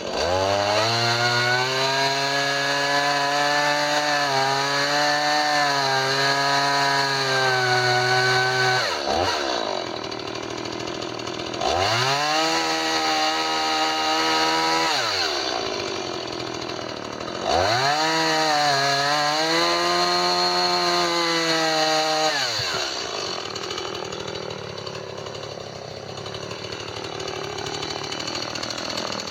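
Two-stroke chainsaw cutting through a fallen tree: it is revved to full throttle and held there for about nine seconds, then about three, then about five, dropping back toward idle between cuts. It runs more quietly for the last six seconds.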